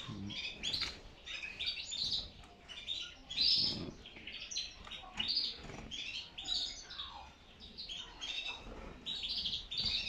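Caged domestic canaries chirping in quick, irregular runs of short, high calls.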